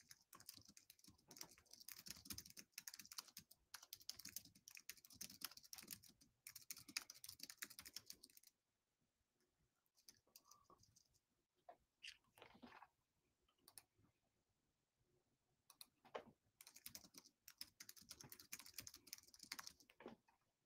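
Faint typing on a computer keyboard: two long runs of rapid key clicks with a few scattered clicks in a pause between them.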